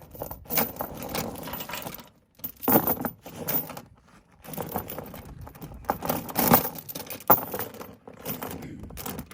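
Steel tie-down chains clinking and rattling in irregular bursts as they and their chain binder are handled and tightened.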